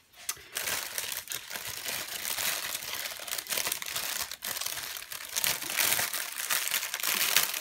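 Clear plastic bags of diamond-painting drills crinkling and crackling as they are handled.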